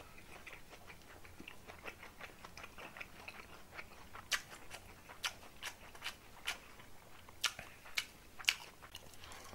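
Close-miked chewing of a mouthful of grilled fish and rice: soft, irregular wet mouth clicks and smacks, a little more frequent in the second half.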